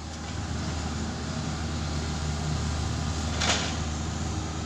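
Kubota mini excavator's diesel engine running steadily under work, with one brief, sharp noise about three and a half seconds in.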